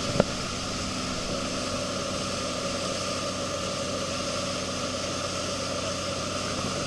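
Towing boat's engine running steadily under way, a constant hum with the rush of churning wake water over it. A single sharp click just after the start.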